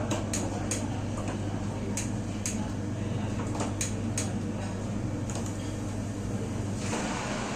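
Irregular light clinks and clatter of dishes and utensils over a steady low hum of kitchen machinery, with a short rush of noise near the end.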